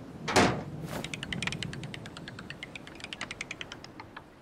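Cartoon sound effect of a clock mechanism: a short whoosh, then a rapid run of ratcheting clicks, about ten a second, fading out near the end, as the repaired clock is knocked to the wrong time.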